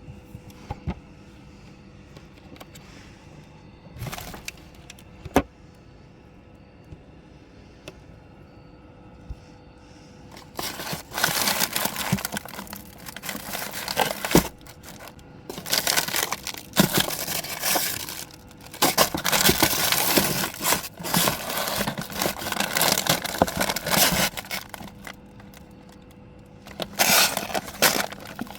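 Packaging being handled and unwrapped: a few light knocks, then long stretches of crinkling and tearing from about ten seconds in.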